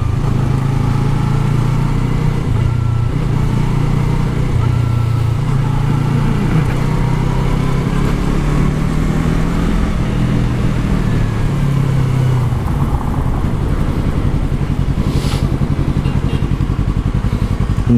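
Yamaha R3's 321cc parallel-twin engine running under way, its note shifting up and down in steps as the bike rides on. Over the last few seconds it settles to a lower, steadier pulsing note.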